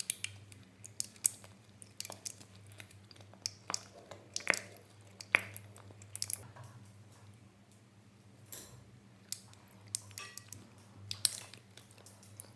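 Water poured in thin streams into a shallow glass dish, heard as irregular small splashes, drips and plinks.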